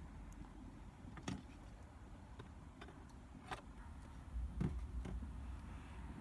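Handling noise from a phone held close to a plastic bucket: a low rumble with a few light clicks and knocks, the strongest about four and a half seconds in.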